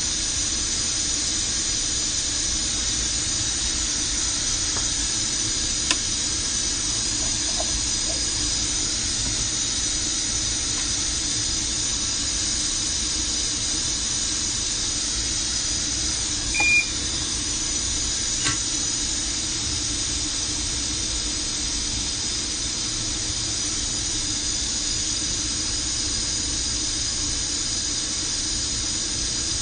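Steady hiss of air blowing from electronics bench equipment, with a brief high squeak about two thirds of the way through.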